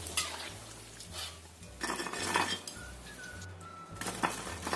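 A stainless steel strainer basket knocking and clinking against a wok as fried tempeh is scooped out and drained: a few separate metal clinks, with a denser clatter about two seconds in.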